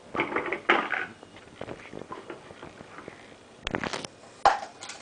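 Plastic toy dishes and plates clattering as they tumble out of a toy kitchen cupboard onto a tile floor: a rattle in the first second, then a few sharp knocks near the end.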